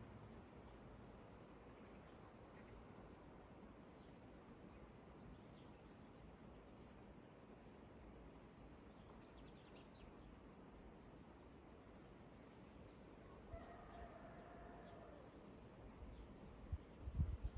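Steady, high-pitched chirring of insects at dawn, faint and continuous. A faint wavering bird call comes about two-thirds of the way in, and a few low thumps come near the end.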